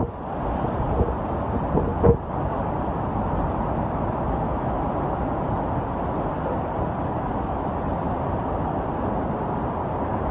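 Hurricane storm noise: wind and driving rain, uneven at first. After a sharp knock about two seconds in, it settles into a steady rushing.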